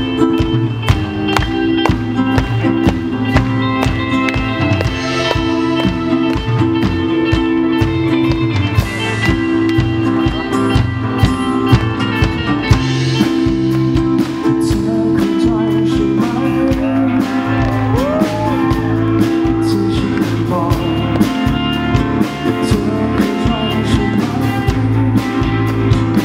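Amplified live band music: guitars over a steady drum beat, with a man singing into a microphone.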